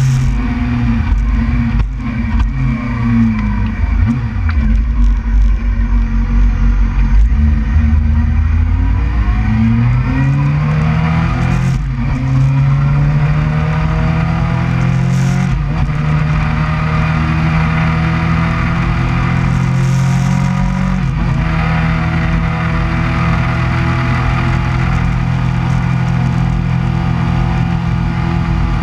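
Suzuki GSX-R600's inline-four engine heard from onboard while riding, with wind rumble on the microphone. The engine note falls over the first few seconds, climbs under acceleration from about nine seconds with a gear change near twelve seconds, then holds a steady cruise.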